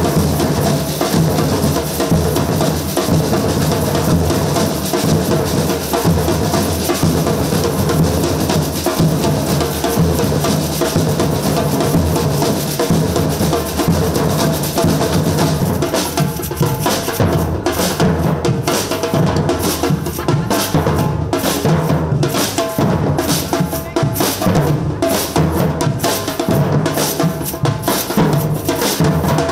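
Samba batucada drum group playing: deep surdo bass drums keep a steady groove under snare-type drums and metal jingle shakers (chocalhos). From about halfway through, the playing breaks into sharper accented hits with short gaps between them.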